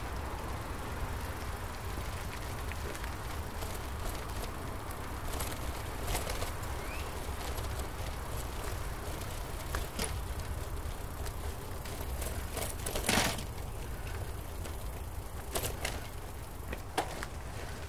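Bicycle rolling along a trail: a steady low rumble from the tyres, with scattered clicks and rattles from the bike, the sharpest about thirteen seconds in.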